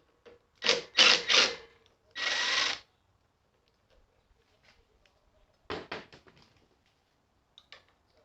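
Handheld power tool run in three short bursts, then in one steady run of under a second. A few seconds later comes a quick rattle of clicks.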